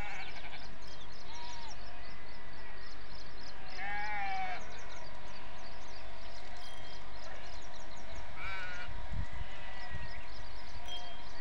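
Animal calls, bleat-like and pitched, repeating several times a few seconds apart, over continual small high bird chirps and a low steady rumble.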